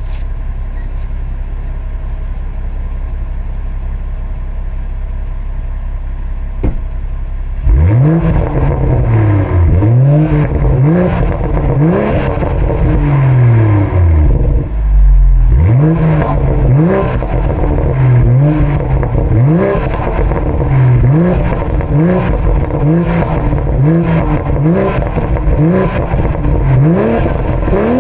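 BMW M340i's turbocharged 3.0-litre inline-six idling through its exhaust, then from about eight seconds in being blipped over and over, about one rev a second, each rev rising and falling with crackles and burbles on the overrun.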